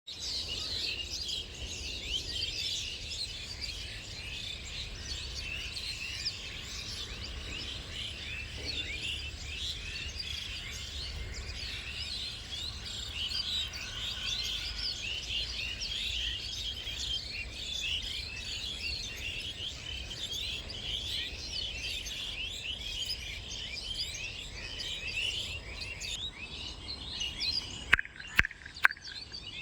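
A large flock of birds gathered at their evening roost, thousands of them chirping and calling at once in a dense, continuous chatter. There are three sharp clicks near the end.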